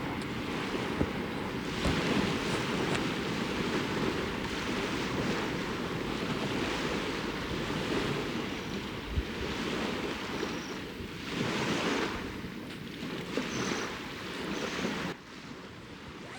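Small waves washing in on a lakeshore, surging and falling every second or two, with wind buffeting the microphone. The sound drops off suddenly near the end.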